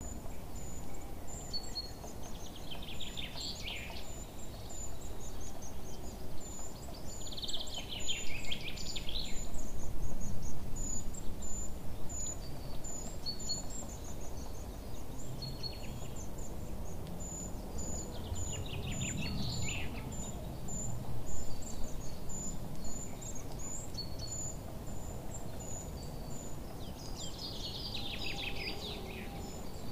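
Birdsong ambience: short high chirps repeat about twice a second, and a falling, twittering song phrase comes every several seconds, over a low background rumble.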